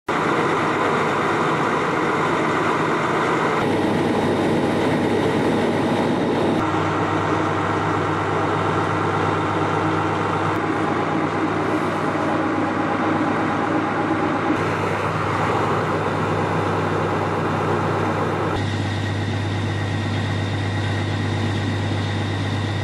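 Large diesel engines of fire trucks running steadily at idle, with a constant low hum. The tone of the engine noise changes abruptly several times.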